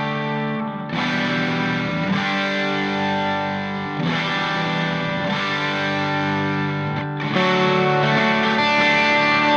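Background music led by distorted electric guitar with effects, sustained chords changing every second or two; it gets louder about seven seconds in.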